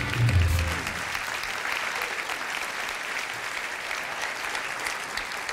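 Theatre audience applauding steadily, many hands clapping at once. A low held tone from the closing music fades out in the first second.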